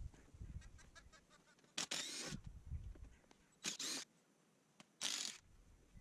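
Three short scraping rustles, each about half a second, as an old rubber car tyre is worked by hand and shifted on top of a wooden log stump. There are a few faint low bumps in between.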